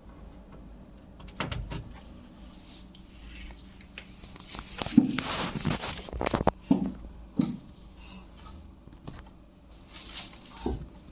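Handling noise: scattered clicks and knocks, with a louder stretch of rustling in the middle, as objects are handled and unpacked.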